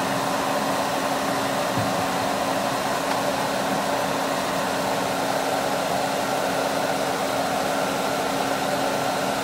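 Soldering fume-extraction vent fan running steadily and noisily: an even rush of air with a low steady hum.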